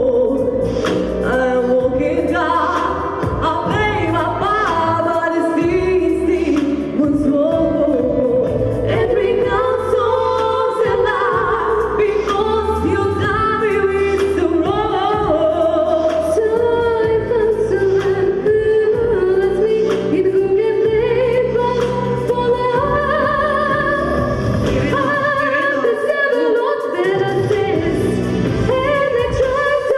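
Two female voices singing a song as a duet over instrumental accompaniment with a steady bass line; the bass drops out briefly near the end.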